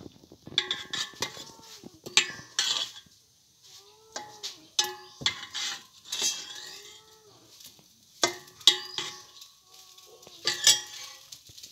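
Metal spoon and ladle scraping and clinking against a metal cooking pot while stirring food, in sharp, irregular knocks. Several short tones that rise and fall sound between the knocks.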